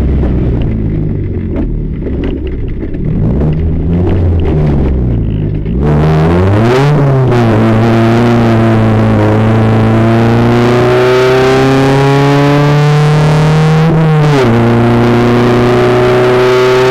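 Renault Twingo Twin'Cup race car's engine heard from inside the cabin. It is lower and off the throttle for the first six seconds. Then it pulls hard with its pitch climbing steadily, and the pitch drops sharply about seven and fourteen seconds in as it shifts up.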